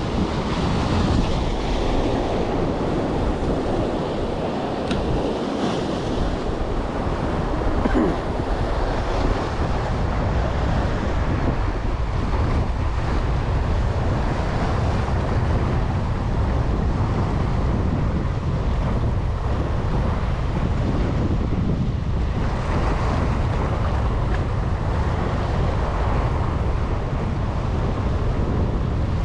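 Steady wind buffeting the microphone, with the wash of waves and surf underneath.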